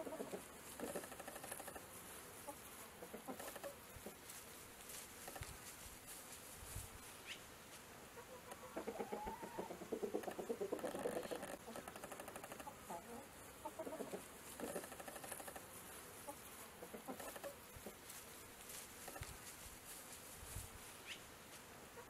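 Chickens clucking in short repeated calls, with a louder, busier run of clucks about nine to twelve seconds in.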